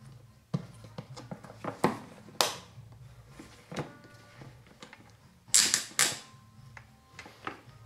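Switchback snowboard binding being put together by hand: its plastic parts click and knock together in an irregular handful of sharp clicks, the loudest a quick cluster about five and a half seconds in, as the screwless pieces are fitted together.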